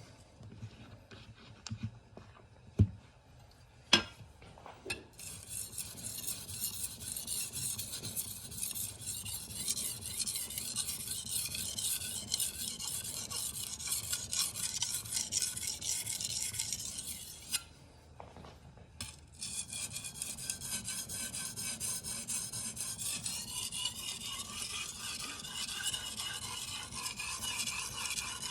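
Damascus steel knife blade stroked back and forth on an 8000-grit whetstone: a steady, high rasping scrape with a short pause about two-thirds of the way through. A few sharp clicks come in the first few seconds before the stroking starts.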